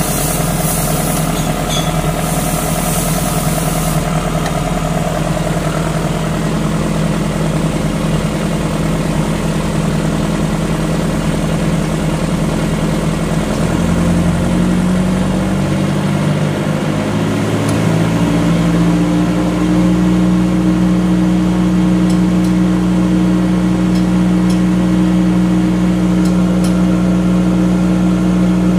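Generator set engine running at reduced warm-up speed, then speeding up over several seconds about halfway through and holding steady at a higher speed. This is the governor bringing it up to rated speed, where the generator puts out 60 Hz for normal running.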